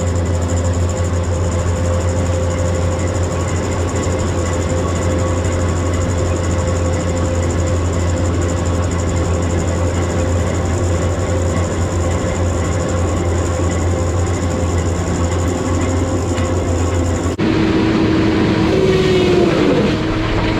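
Heavy engine or machinery running steadily with a deep hum. About 17 seconds in, it cuts abruptly to a different engine sound with a lower steady tone and a brief falling whine.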